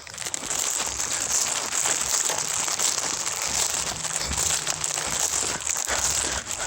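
Continuous rustling and crunching of a person jogging, footsteps and clothing or gear rubbing with every stride.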